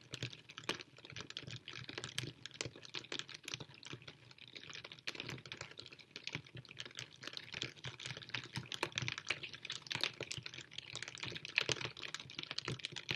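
Rain falling steadily, with a dense, irregular patter of close drops and splashes.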